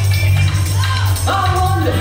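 Loud house music playing over a heavy, steady bass, with a sung vocal line in the second half.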